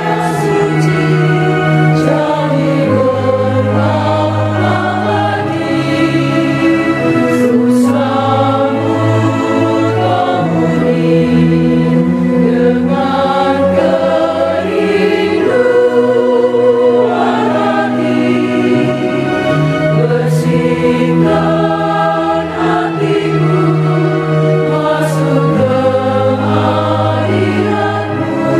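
Mixed choir of men and women singing a hymn together, accompanied by an electronic organ holding sustained chords that change every few seconds.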